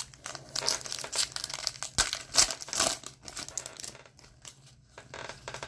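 2019-20 Upper Deck Series One hockey card pack being torn open, its wrapper crinkling in a quick run of crackles, loudest about two to three seconds in, then softer rustling as the cards are handled near the end.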